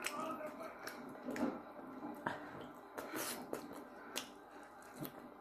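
Close-miked eating of sauce-covered spare ribs by hand: wet mouth smacks and chewing, with a scattering of short sharp clicks, about eight in five seconds.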